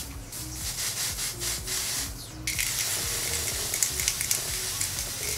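Aerosol can of spray-on bronzer hissing close to the face, first in short light pulses, then in a longer steadier spray from about halfway. It sounds like a spray paint can. Faint background music underneath.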